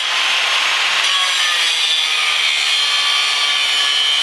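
Angle grinder running steadily as it cuts away surplus metal from a small engine's casing, with a high whine over the grinding noise.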